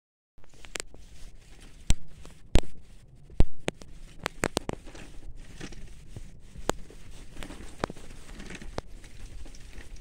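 Bicycle rolling along a dirt forest trail, its tyres crunching over dry leaves and twigs, with sharp clicks and knocks as it rattles over bumps; three loud knocks come in the first few seconds.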